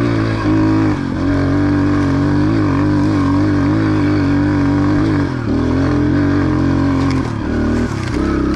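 Yamaha TTR125's single-cylinder four-stroke engine running under way at a steady throttle, its pitch easing off briefly about five seconds in and again near the end.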